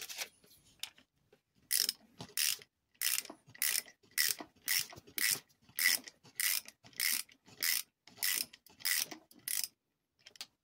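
Socket ratchet wrench ratcheting on a bolt of the motor's end bell as it is loosened: a steady run of about fourteen short clicking strokes, roughly one every half second to two-thirds of a second.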